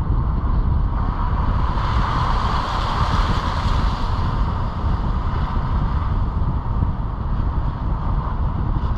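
Steady low rumble of a moving vehicle, with a broader hiss swelling and fading between about two and five seconds in.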